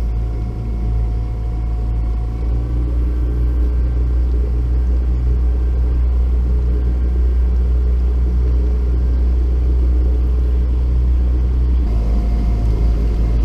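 A boat's outboard motor running steadily: a low, even drone with a change in tone about twelve seconds in.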